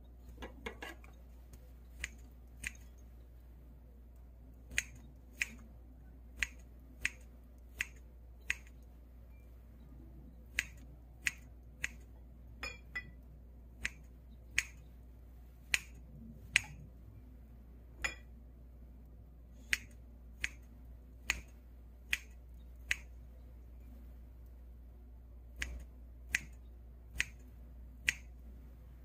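Kitchen scissors snipping boiled pork and softened dried pollack into small pieces: about two dozen sharp, single snips at an uneven pace, half a second to a couple of seconds apart.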